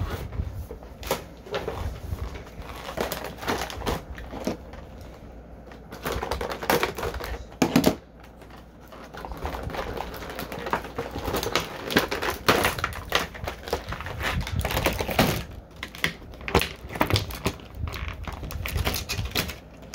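Plastic toy packaging being handled and opened: a busy run of irregular clicks, taps and plastic crinkling as trays and bags are pulled apart.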